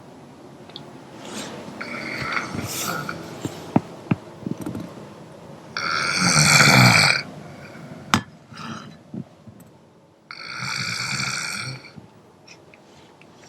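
A person snoring: two long, loud snores about six and ten seconds in, with quieter snoring breaths and a few short clicks between them.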